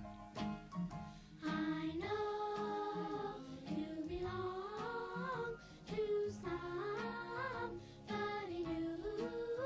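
Music with singing: a few short, separate notes, then from about a second and a half in a sung melody that rises and falls, with brief breaks between phrases.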